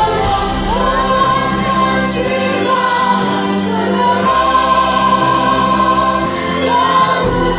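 Mixed church choir of children, women and men singing a hymn in parts, holding long sustained notes, with a couple of hissing 's' consonants about two and three and a half seconds in.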